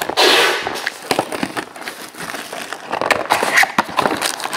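Clear plastic shrink wrap ripped off a trading-card box, a loud tearing rush in the first second, followed by crinkling and crackling of the loose wrap and clicks from the cardboard box as it is opened.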